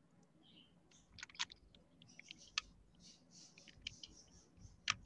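Faint, irregular clicks of a computer keyboard and mouse while code is being edited, with a small cluster about a second in and the sharpest click near the end.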